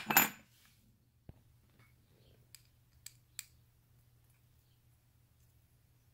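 Small parts being handled: a short clatter as the aluminium plate and circuit board of a battery spot welder kit are moved against each other, then a few light clicks as screws are worked with a hex key, and quiet after about three and a half seconds.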